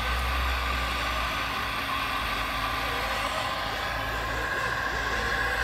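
Radio-controlled excavator and dump truck models running, their sound modules playing a steady diesel engine drone through small speakers, with a steady high whine over it.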